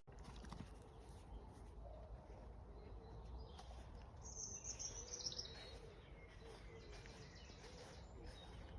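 Faint birdsong over a quiet outdoor background, with a short, high, falling chirp about four to five seconds in.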